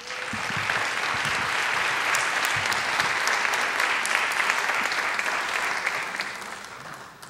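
An auditorium audience applauding, a dense clatter of many hands clapping that swells in the first second, holds steady, then thins out and fades near the end.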